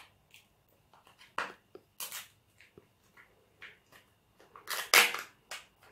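Hands opening a small plastic toy capsule and handling the wrapping inside: short, scattered crinkles and rustles of plastic and paper, the loudest about five seconds in.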